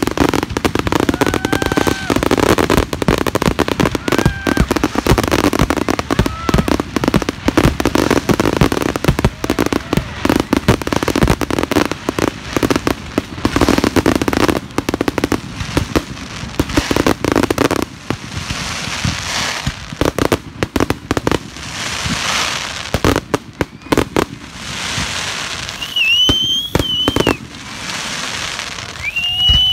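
Fireworks going off: a dense, rapid barrage of bangs and crackles that thins after about eighteen seconds into scattered pops over a crackling hiss, with a few short high whistles near the end.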